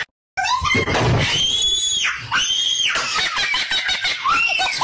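High-pitched voice screaming: two long, shrill arching squeals about a second and two seconds in, with quicker short shrieks around them.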